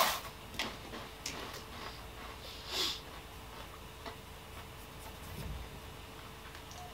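Quiet eating and handling noises: a wafer being chewed and its wrapper handled, giving faint scattered clicks, with a short breath-like hiss about three seconds in.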